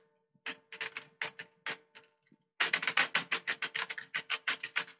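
Keys of a full-size Microsoft PC keyboard clattering as two hands type roughly on it. A few scattered keystrokes give way, about halfway through, to a rapid, dense run of key clicks.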